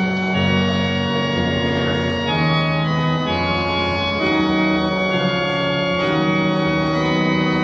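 Organ playing slow, sustained chords, each held for about a second before moving to the next.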